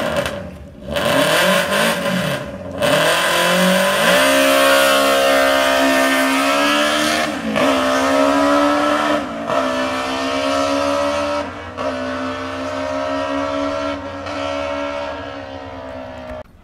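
Drag race car engine at full throttle: its pitch climbs over the first few seconds, then holds a high, steady note that dips briefly about four times before cutting off suddenly near the end.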